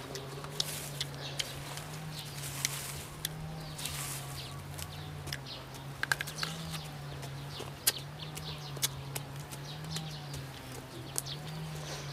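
Close-up crunching and chewing of crisp unripe green mango, with a string of sharp crunches, the loudest about 8 s in. A steady low hum runs underneath throughout.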